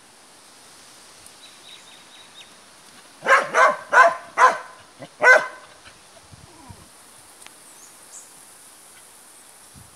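A dog barking: five loud barks in quick succession about three seconds in, over roughly two seconds.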